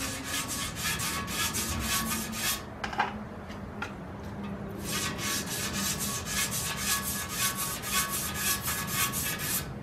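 A brush scrubbing the oil passages of a cast-iron Ford 390 FE engine block in quick back-and-forth strokes, about six a second, pausing for about two seconds near three seconds in before starting again. The block is being scrubbed clean of grit before assembly.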